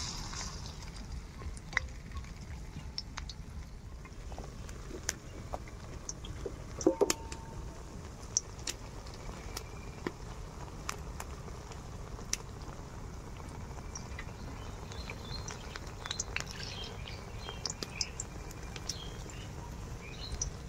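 Batter-coated taro stolon fritters deep-frying in hot oil: a steady sizzle with scattered sharp pops and crackles, a short cluster of louder pops about seven seconds in.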